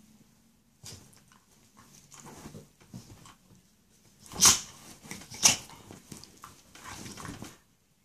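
A pit bull–type dog play-fighting with a cat on a bed: a run of short breathy huffs and snorts with rustling bedding, the two loudest about four and a half and five and a half seconds in.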